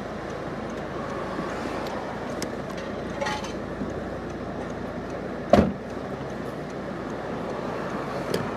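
Steady car and street traffic noise, with one sharp thump about five and a half seconds in.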